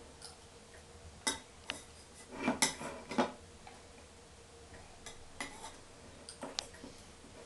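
A spoon clicking and scraping inside a small baby-food jar as a toddler scoops food from it. Short taps come at irregular moments, most thickly between about two and a half and three seconds in.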